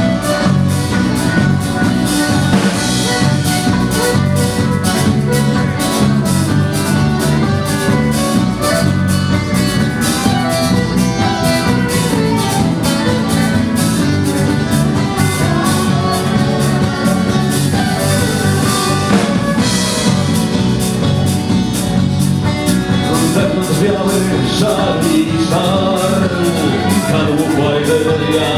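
Live folk band playing a sea shanty on fiddle, acoustic guitar, bass guitar and drum kit, with a steady beat.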